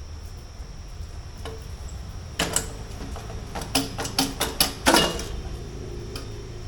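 Metal knocks and clanks as the Ducati Multistrada 950's stock exhaust pipe is pulled down and worked free of its joint. A few knocks come about two and a half seconds in, then a quick run of them from about three and a half to five seconds, the loudest near the end of that run.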